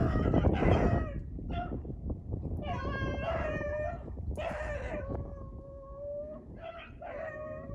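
A pack of beagles baying while running a rabbit, giving long drawn-out howling notes one after another, sometimes overlapping.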